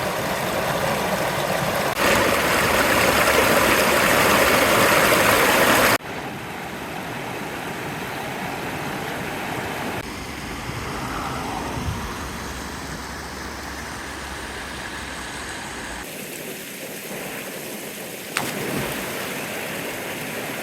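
Rushing river water, in several short clips joined by hard cuts, loudest a few seconds in.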